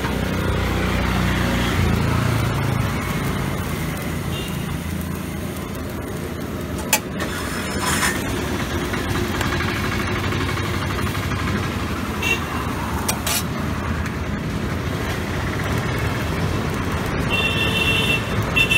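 Steady street traffic noise, with an engine rumbling low in the first few seconds. A few sharp knocks come through, and a vehicle horn sounds several short toots near the end.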